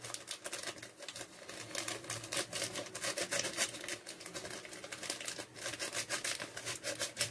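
A mixing utensil stirring semolina batter in a plastic mixing bowl: a fast, uneven run of clicks and scrapes against the bowl as the baking powder is worked in.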